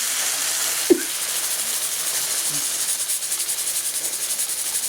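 Onion and spice masala with freshly added chopped tomatoes sizzling in hot oil in a pan: a steady hiss that turns to a quick, even sputter from about halfway through. One sharp knock about a second in.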